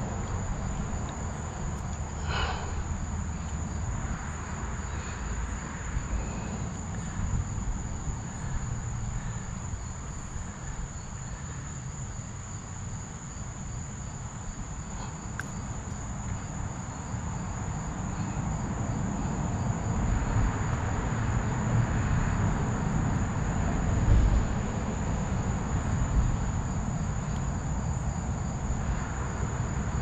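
Insects chirring with one steady high-pitched tone, over a constant low rumble.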